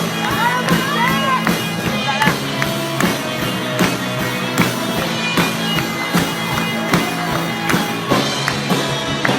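Band music with drums and guitar playing a steady beat over sustained bass notes, with a voice singing briefly near the start.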